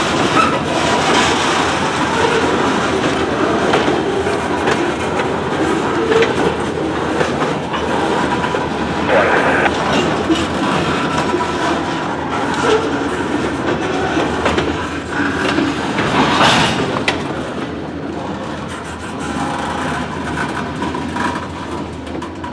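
Freight train of loaded covered hopper cars rolling past, steel wheels clattering over the rail joints in a steady stream of clicks. The sound eases a little near the end as the last car goes by.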